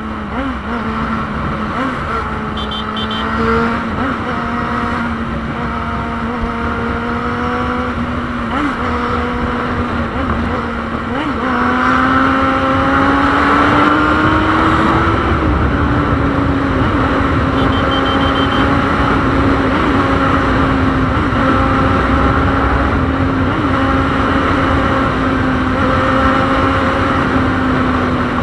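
Yamaha FZ6 Fazer 600's inline-four engine running as the motorcycle is ridden, over low wind and road rush. About eleven seconds in the engine note rises for a few seconds as it accelerates, then holds steady.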